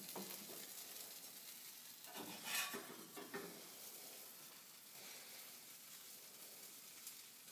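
Faint sizzling of a cheese-topped roti chapati frying in a cast-iron skillet, with a brief louder scrape or clatter a little over two seconds in.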